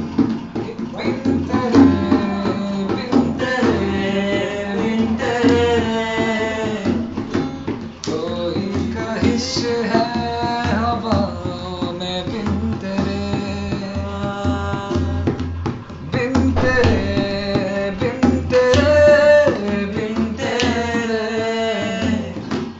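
Song music with tabla drumming under a held, bending melody line.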